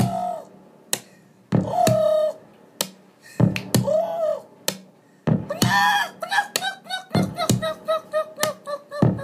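Dance record playing on a turntable: hard drum hits under short, pitch-bent vocal-like samples, which break into a rapid stutter of clipped stabs, about four a second, from about six seconds in.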